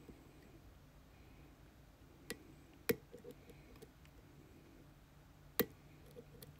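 Lock pick and tension wrench working in a challenge lock after the pins are reset: scattered faint ticks and three sharp metallic clicks, about two seconds in, three seconds in and near the end.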